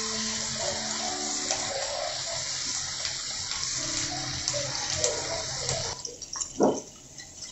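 Oil sizzling steadily around skewers of chicken and vegetables frying in a pan. The sizzle cuts off suddenly about six seconds in.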